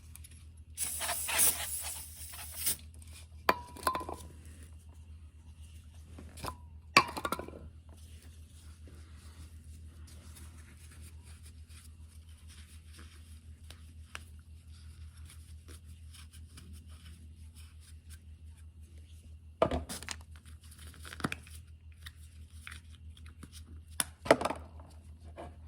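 Hand work on an oil burner's electrode and nozzle assembly while crusty electrodes are cleaned: a short scraping rasp about a second in, then scattered metal clicks and clinks over a steady low hum.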